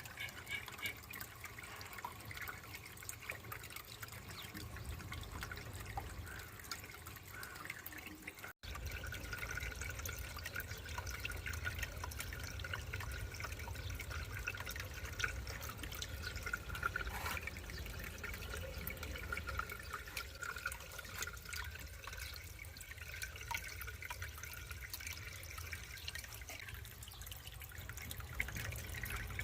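Water trickling and dripping in a refrigerator aquarium as it runs, over a steady low hum; the sound drops out for an instant about eight seconds in.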